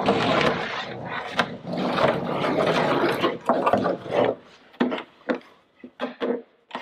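Hollow plastic fuel tank being handled on a table: a few seconds of rubbing and scraping, then scattered knocks and clicks from about four seconds in as it is tilted and lifted.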